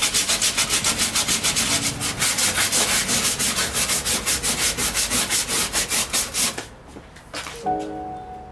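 Hand rubbing down the Datsun 240Z's floor pan with quick, even back-and-forth strokes, about five a second, that stop about six and a half seconds in. Music notes come in near the end.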